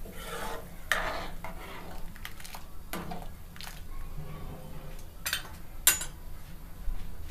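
A steel ladle stirring a thin curry in a steel kadai: scraping and sloshing swishes, then a few sharp clinks of the ladle against the pan, the loudest near the end.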